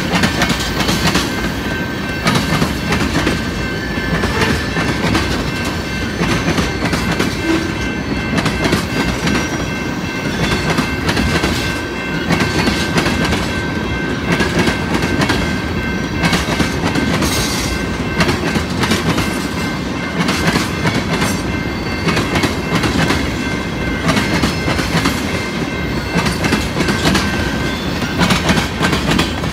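Loaded freight tank cars rolling past at speed, their wheels clicking over the rail joints over a steady rumble. A thin, steady high tone runs over it the whole time.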